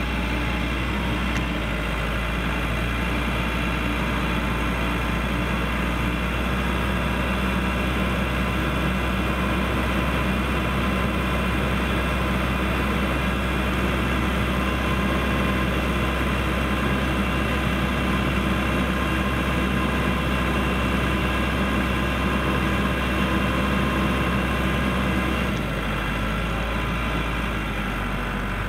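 Case 580L backhoe's turbo diesel engine running steadily at a constant speed, easing off slightly near the end.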